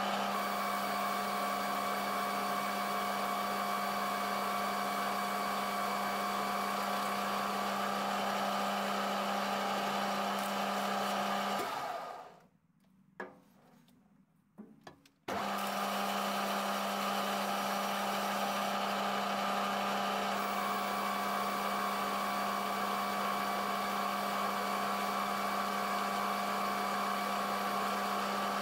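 Metal lathe running steadily, a hum with a held whine, while a tool turns a metal roller for a belt sander. About twelve seconds in it winds down and stops for about three seconds, with a few small clicks, then starts again abruptly and runs on.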